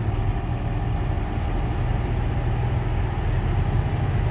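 Doosan DX140W wheeled excavator's diesel engine idling steadily.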